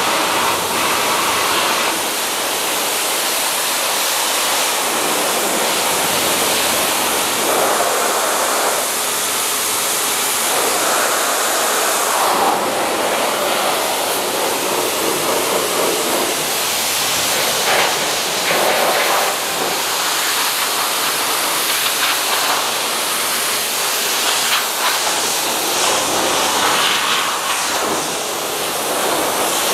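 High-pressure water jet from a pressure-washer lance spraying onto a car's bonnet: a steady hiss that shifts a little as the jet sweeps across the panel.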